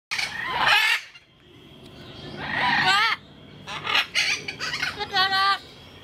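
Amazon parrot calling: loud, harsh squawks whose pitch bends up and down. There is one call at the start, a longer rising-and-falling call about halfway, and a quick run of shorter calls near the end.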